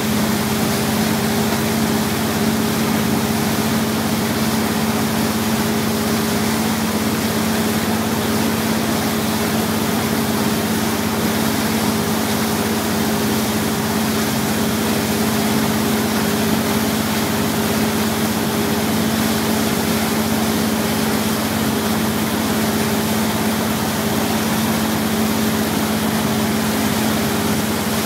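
Wake boat's engine running at a steady cruising speed, a constant hum under the rushing wash of its wake.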